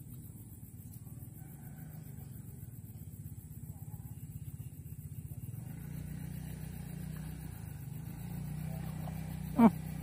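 An engine running steadily with a low hum, getting louder from about halfway in. Near the end comes one short, sharp rising squeak, the loudest sound.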